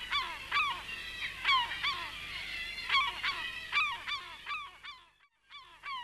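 A flock of birds calling over and over, many short loud calls overlapping. It breaks off abruptly about five seconds in, then the calls resume just before the end.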